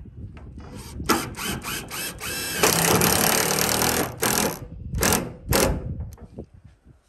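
Cordless drill-driver driving a screw into the wooden corner board of a raised garden bed. It starts about a second in with a few stuttering runs, then runs steadily for about a second and a half, and finishes with short bursts.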